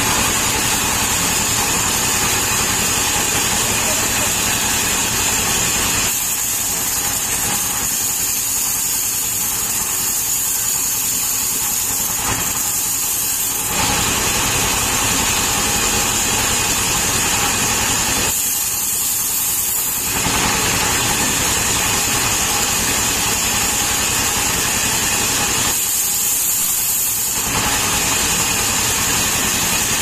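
Stationary diesel engine running steadily as it drives a sawmill band saw cutting a palm log. The higher hiss drops away three times for a few seconds.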